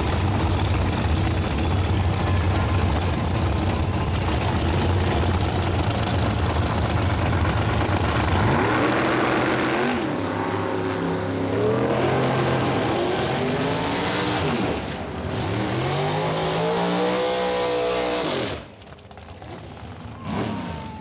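Super Comp dragster's V8 engine idling loudly on the starting line, then launching about eight seconds in and pulling down the track, its pitch rising and falling several times through the run. The sound drops away sharply near the end as the pass finishes.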